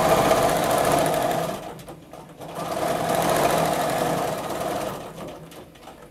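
Bernina domestic sewing machine with a BSR stitch-regulator foot free-motion quilting through a quilt, its needle running in two bursts: the first stops about a second and a half in, the second starts at about two and a half seconds and fades out about five seconds in.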